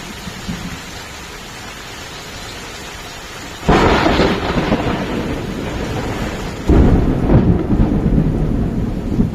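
Steady rain falling, then thunder: a sudden loud clap a little over a third of the way in that rumbles on, and a second loud peal about two-thirds in, rumbling and slowly fading over the rain.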